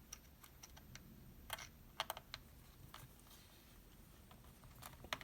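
Faint, sharp clicks of a small screwdriver and tiny screws being handled while the bottom-case screws of a MacBook Air are removed. A few separate ticks, clustered about two seconds in, with another near the end.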